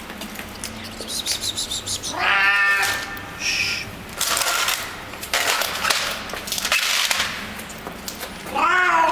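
Feral street cat making weird "happiness" noises while it eats: two pitched, meow-like cries, one about two seconds in and one near the end, with noisy eating sounds between them.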